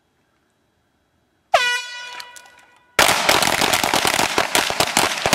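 A shot-timer buzzer sounds once, and about a second and a half later several shooters open fire at the same time. The overlapping rapid shots run together into a dense volley that keeps going.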